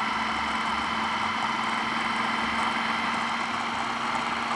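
Electric food processor motor running steadily, blending cauliflower, cheese and eggs into a pizza-base mixture, with an even hum at one pitch.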